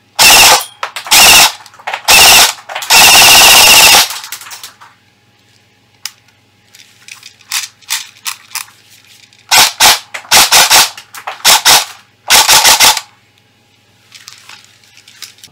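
Electric airsoft STG44 replica firing full-auto bursts at a high rate of fire. There are several short bursts, then one lasting about a second. After a lull with fainter clatter, more short bursts come near the end.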